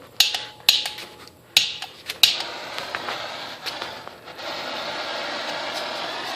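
Gas soldering torch: several sharp igniter clicks, then the flame catches and hisses steadily, growing louder about four seconds in.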